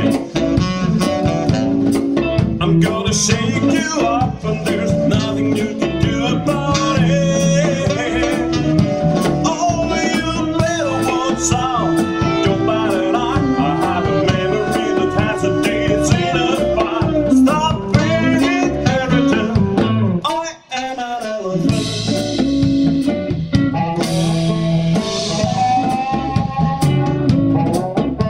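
Live blues band: a male voice singing over electric guitar, bass and drum kit. About two-thirds through, the band drops out for a moment, and a harmonica then comes in over the band.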